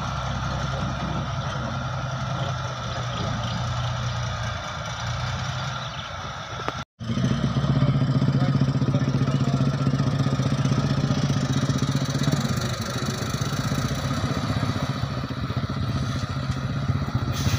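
Heavy diesel engine running steadily at low revs. After a short break in the sound about seven seconds in, it comes back louder and closer: the flatbed truck's diesel engine as the truck, loaded with a bulldozer, moves up.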